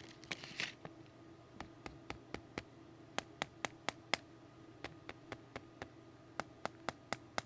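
Irregular sharp clicks and taps on the hard plastic grip of a Wera 416RA T-handle, a harder compound than the older, softer grip.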